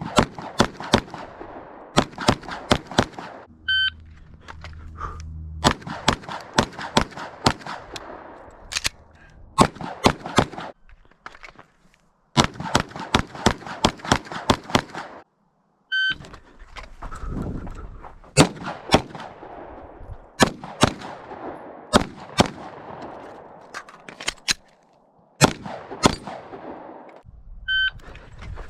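Rapid strings of pistol shots from a Glock handgun, several shots a second with echo after each. A shot timer beeps three times, each beep followed by a fresh string of fire.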